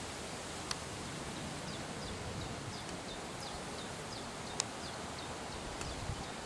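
Steady outdoor background hiss with a small bird repeating short, high, falling chirps about three times a second, and two faint clicks.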